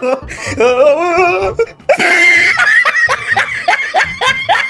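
Laughter: a wavering, pitched voice-like sound, then from about two seconds in a fast run of short, repeated laughing pulses.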